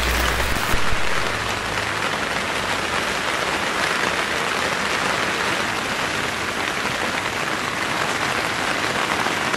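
Heavy rain hammering down on a tent's fabric and clear window panel, heard from inside the tent as a steady, even patter.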